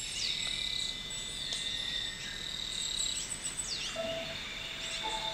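Forest ambience of birds giving high whistles that fall in pitch, a few times, over a steady high insect tone. Low musical notes come in about four seconds in.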